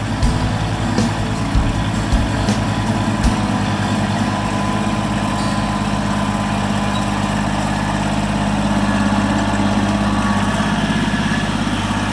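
Kubota B21X compact tractor's diesel engine running steadily at an even speed, with several sharp knocks or clunks in the first few seconds.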